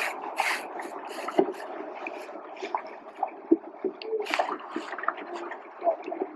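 Water splashing and gurgling around a boat on the water, with short hissing splashes about half a second in and again about four seconds in.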